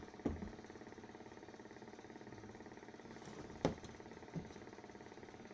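Three short knocks over a steady background hum: one just after the start, the loudest a little past halfway, and a lighter one soon after.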